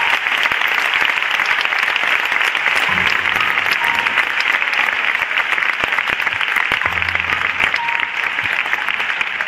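Concert audience applauding, a loud dense clatter of clapping throughout. Two low sustained notes sound under it, about three and seven seconds in.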